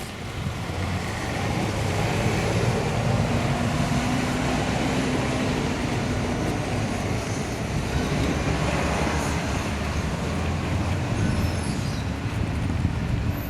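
Road traffic passing close by, a steady engine and tyre rumble that swells about a second in and stays loud.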